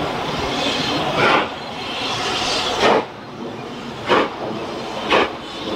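Steam locomotive starting away out of sight: a hiss of steam fades, then single exhaust chuffs come about a second apart, quickening slightly as it gathers speed.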